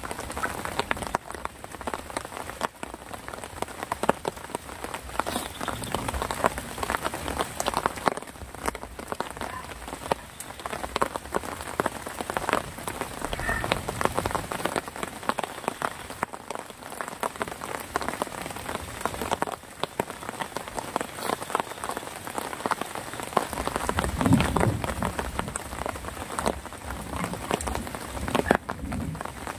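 Steady rain, a dense stream of individual drops striking a surface.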